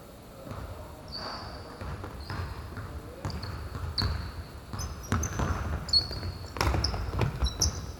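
Basketball bouncing on a hard court, a string of thuds that grows busier and louder in the second half, with many short high squeaks of sneakers on the floor.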